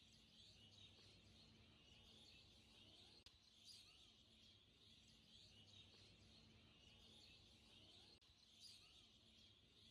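Near silence: a very faint high hiss with a low hum beneath it.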